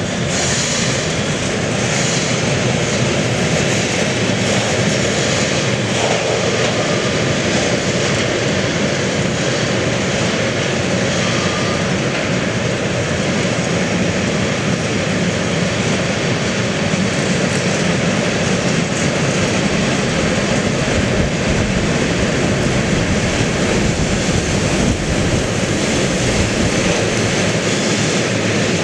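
Long freight train of tank wagons rolling past on a curve, a loud steady rumble of wheels on rail.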